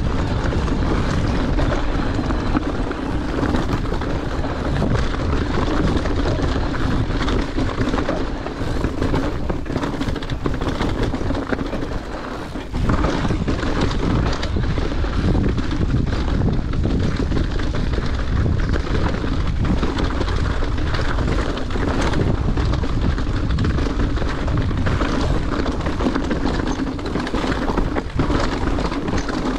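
Mountain bike descending a rocky trail: wind buffeting the microphone, with tyres crunching over rock and the bike rattling through constant small knocks.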